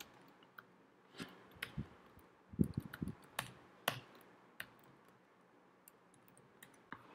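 Typing on a computer keyboard: irregular keystroke clicks, closer together in the first half and thinning out later.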